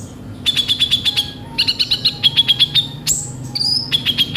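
Kolibri ninja sunbird singing: fast runs of sharp, high chirps in several bursts, with a couple of higher whistled notes about three seconds in. It is the harsh, chattering filler song (isian kasar) that keepers use to prompt other birds.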